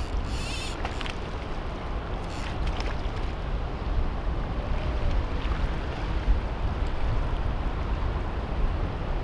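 Wind buffeting the microphone with a steady low rumble over the wash of open water, and a brief splash about half a second in as a hooked black sea bream thrashes at the surface.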